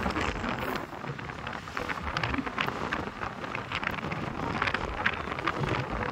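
Outdoor wind rumbling on a phone's microphone, with steady noise and many scattered small crackles.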